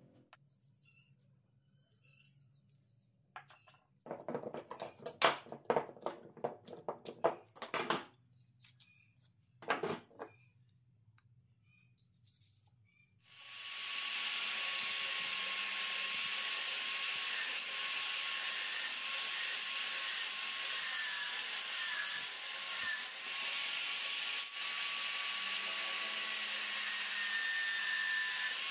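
A few light clicks and knocks, then about halfway through a drill press starts and runs steadily, boring through stacked plywood pieces with a twist bit and then a step drill bit.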